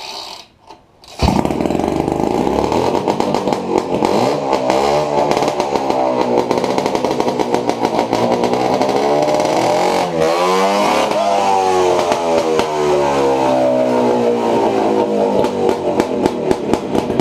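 Bombardier 440cc two-stroke twin-cylinder snowmobile engine on a go-kart catching about a second in and running loud, its pitch rising and falling again and again as the throttle is blipped.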